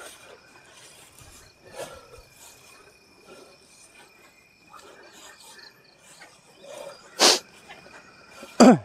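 Night insects, crickets or similar, chirring steadily. Near the end come two loud, short bursts about a second and a half apart; the second drops sharply in pitch.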